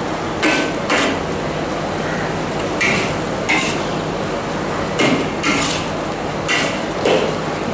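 Metal spatula scraping and knocking against an aluminium wok while stir-frying vegetables, in short strokes that come in rough pairs, about four pairs in all. A steady hiss runs underneath.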